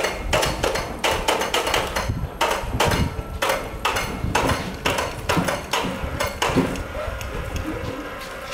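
Rapid, irregular metallic knocks and clanks, several a second, from metal parts of a polyethylene pipe butt fusion welding machine being handled and knocked together. They thin out over the last second or two.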